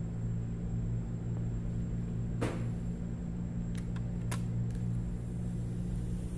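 Steady low hum with several sharp clicks and a crackle of a phone and its clear plastic protective film being handled. The loudest crackle comes about two and a half seconds in, with lighter clicks a second or two later.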